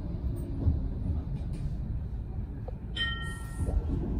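Blackpool tram running on its rails with a steady low rumble. A short high tone sounds about three seconds in.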